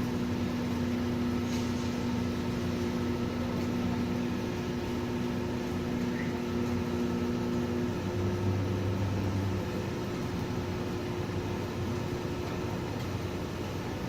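A steady hiss with a low mechanical hum under it. One hum tone drops out about eight seconds in and a lower hum swells briefly just after.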